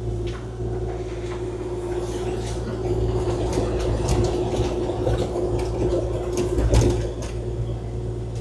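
Kubota KX040-4 mini excavator working, its diesel engine and hydraulics giving a steady drone with a held whine. Scattered clacks and knocks of rock in the bucket cut through it, the loudest about seven seconds in.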